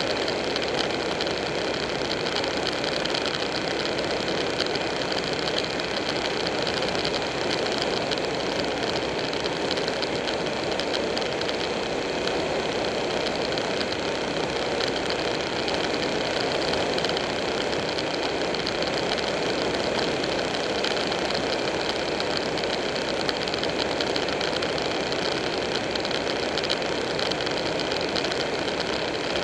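Buell 1125R's V-twin engine running at a steady cruise, with wind and road noise rushing over a bike-mounted camera. The level stays even throughout, with no gear changes or revving.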